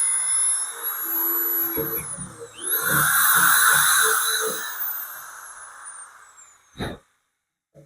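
Electric drill drilling into the steel of a loader bucket: it runs at speed, eases off, then starts again with a rising whine and winds down in a falling whine after the trigger is released, ending with one sharp click.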